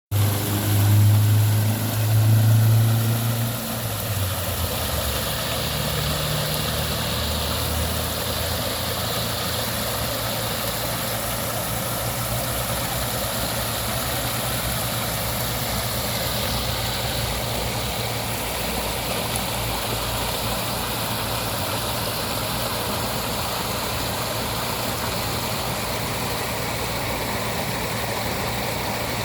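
Waterfall rushing steadily, with a deep low rumble under the spray. The rumble is louder for the first four seconds, then settles to an even level.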